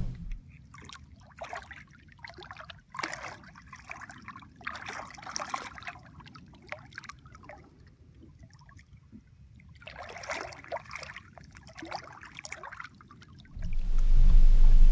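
Water splashing and trickling in irregular bursts, with a quiet gap in the middle. A loud low rumble starts near the end.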